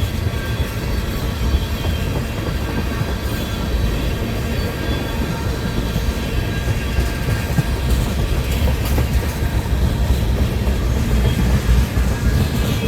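Freight train cars rolling past: a steady low rumble of steel wheels on the rails, with clicking over the rail joints and faint, steady wheel squeal.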